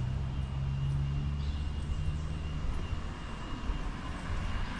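Low, steady engine hum that fades after about two and a half seconds, with a faint steady high-pitched tone behind it.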